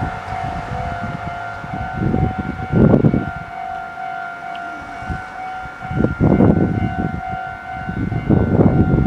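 Meitetsu 4000 series electric train running, with surges of low rumble from the wheels and running gear. A steady high tone holds throughout.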